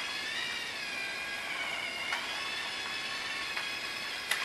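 LEGO DUPLO steam train's battery motor and gears whining as the locomotive runs around the plastic track, the pitch wavering a little, with a couple of light clicks.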